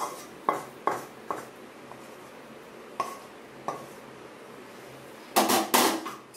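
Metal utensil knocking and scraping against an iron kadai as thick halwa is scraped out into a steel plate: a run of short, sharp clinks, then a louder clatter of metal a little past five seconds in.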